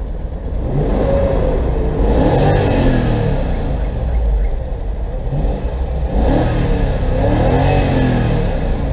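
BMW X5 E53 engine revved up and back down twice, its pitch rising and falling each time. The engine has a knock that appeared right after its VANOS repair.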